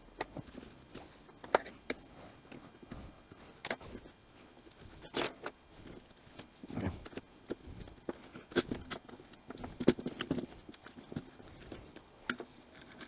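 Irregular clicks and light knocks of small parts being handled as the recoil starter pulley of a Homelite HLT25CS string trimmer is taken out of its housing.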